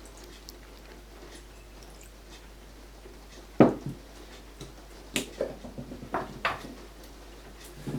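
Worcestershire sauce bottle being jiggled and knocked to coax the sauce out: one sharp knock midway, then a quick cluster of lighter taps and clicks.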